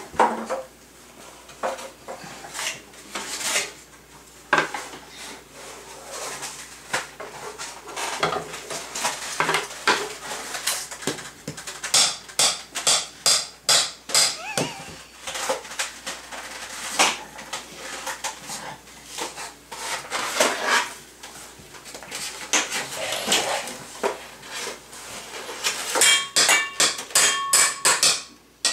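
Metal kitchen utensils and pans clattering and knocking irregularly as a toddler rummages through them. Near the end comes a quick run of strikes on a metal cake pan, which rings.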